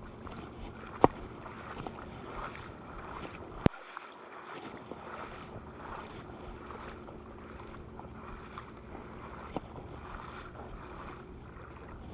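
Steady low boat-engine drone under wind and water noise, with sharp clicks about one second and nearly four seconds in.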